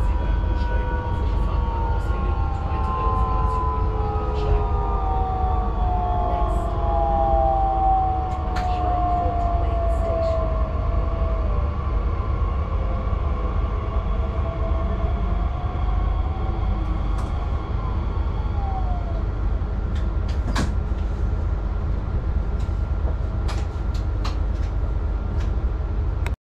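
Class 442 (Bombardier Talent 2) electric multiple unit's traction drive whining over the steady low rumble of the running train, heard from the driver's cab. Several tones fall slowly in pitch over the first twelve seconds as the train slows, with another short falling whine later and scattered light clicks.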